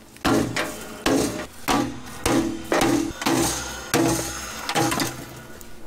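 Hammer striking scrap metal in a plastic tub, about nine blows in a steady rhythm, each with a short ring.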